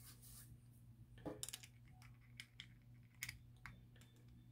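Near silence with a few faint, scattered light clicks and taps as small metal parts of a Traxxas TRX 3.3 nitro engine are handled while the piston and sleeve are fitted into the block, over a low steady hum.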